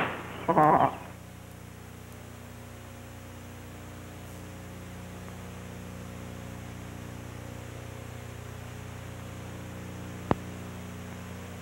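Steady electrical hum with a hiss over it, the noise floor of an old film soundtrack transfer. A short burst of voice comes just after the start, and a single sharp click sounds near the end.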